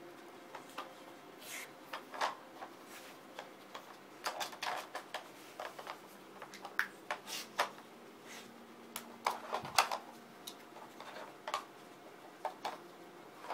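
A dog working a Dog Brick treat puzzle toy: irregular clicks, knocks and clatter as the sliding blocks and pieces are shoved about, with one louder knock about three-quarters of the way through.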